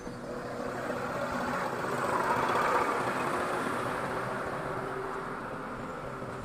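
Tadano mobile crane's engine running while it hoists a large steel fuel tank, swelling louder about two to three seconds in and then easing.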